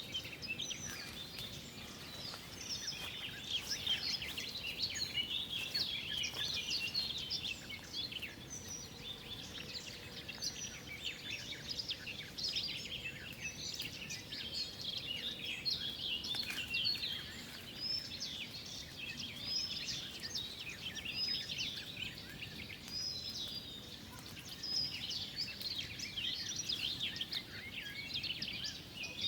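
A chorus of many small songbirds chirping and trilling continuously, their calls overlapping densely, over a steady low background hiss.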